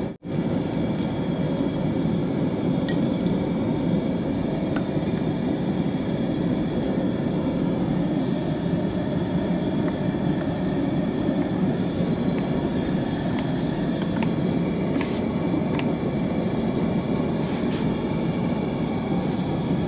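A steady low roar runs under everything, with a few faint clinks of a glass bottle against the metal pan.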